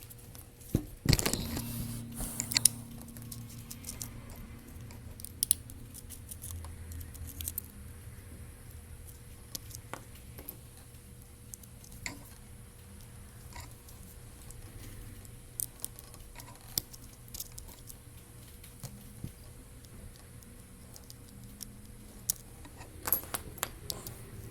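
Scattered sharp clicks and taps of small tools and plastic speaker parts being handled on a repair bench, busiest about a second in and near the end, over a steady low electrical hum.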